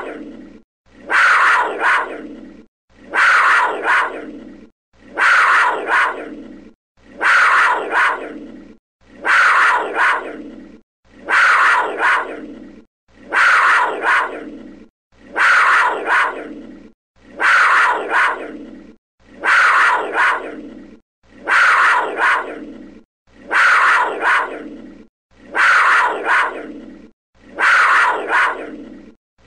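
A big cat snarling, given as a black panther's snarl. The same short, harsh call repeats about every two seconds in an identical loop. Each call starts sharply and trails off over about a second and a half.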